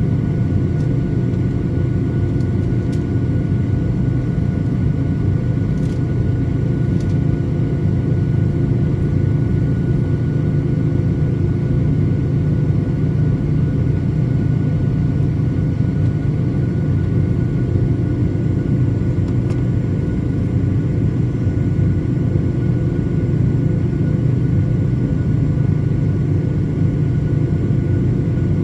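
Boeing 737-900ER with its CFM56-7B turbofans running, heard as a steady, even low rumble with a faint constant whine.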